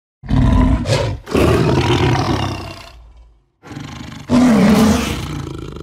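Tiger roar sound effect: two long roars separated by a brief silence a little past halfway, the second one fading away.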